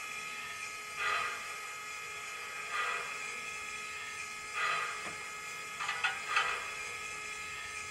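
Sound system of an MTH HO Big Boy steam locomotive model playing its standing-still idle sounds: a steady hum under about five short, soft bursts of hissing, as a stopped steam locomotive's air pump and steam valves would sound.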